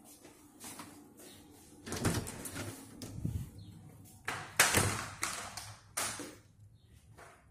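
An interior door with a lever handle being opened and pushed shut: a run of knocks and clatters, the loudest about halfway through, with a last knock about six seconds in.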